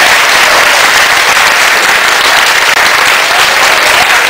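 Audience applauding loudly, a steady dense clatter of clapping.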